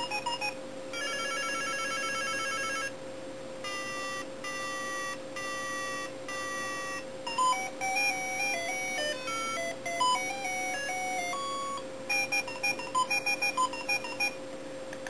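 Toy BlackBerry's electronic sound chip playing beeps and ringtone tunes as its keys are pressed: a fast warbling trill, then a row of held tones, a short stepping melody, and a burst of quick beeps near the end. A steady hum sits underneath throughout.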